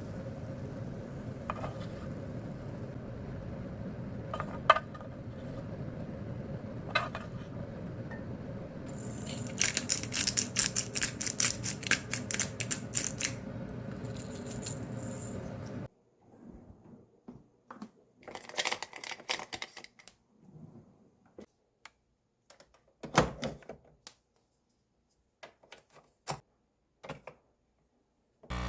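Kitchen handling sounds: scattered clicks and clinks of utensils and dishes over a steady background, with a few seconds of dense crackling near the middle. Partway through the background drops away, leaving only occasional light taps and clinks.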